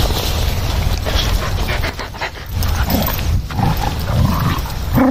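A pack of dogs playing close up, panting and scuffling, with a few short throaty noises in the second half.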